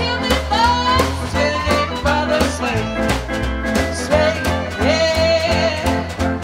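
Small live swing band playing: a woman singing over upright bass, archtop acoustic guitar and snare drum keeping a steady beat.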